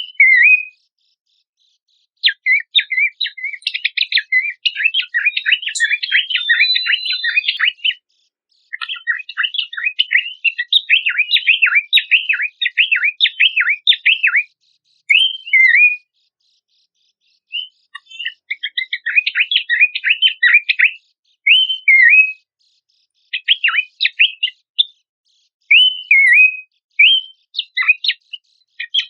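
Pelanduk semak (a babbler) singing: bursts of fast chattering, warbled notes, broken by short silent gaps, with a few single whistled notes in between.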